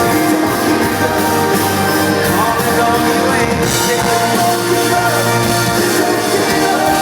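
A rock band playing live, with a lead vocal over the band, loud and steady throughout.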